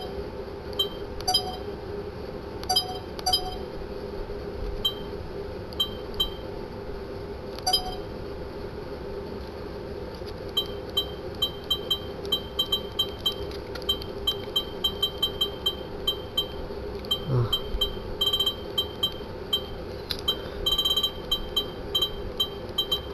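Short electronic beeps from a Sony HDR-CX405 camcorder as its controls are pressed during setup: single beeps at first, then quick runs of them from about ten seconds in. A steady low hum lies underneath.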